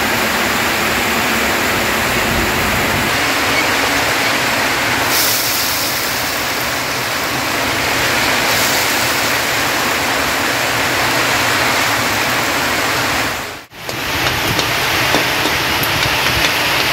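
Water running from a jug's tap into a bowl, then cane toad fat sizzling steadily as it renders in a hot wok, stirred with a spoon. The fat is cooking down to serve in place of cooking oil.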